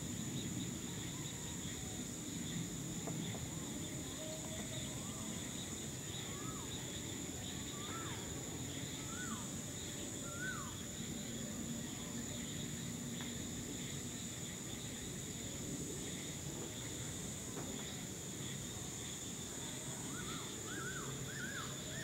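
Evening insects keep up a steady high-pitched drone. A bird calls a string of short notes that sweep up and drop, each a little higher than the last, about a quarter of the way in and again in a quicker burst near the end. A low, even background rumble runs underneath.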